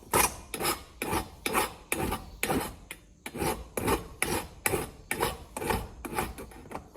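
Hand file rasping back and forth over the edge of a freshly drilled hole in thin metal, deburring it so the edge won't cut. The strokes come evenly, about two to three a second, and stop just before the end.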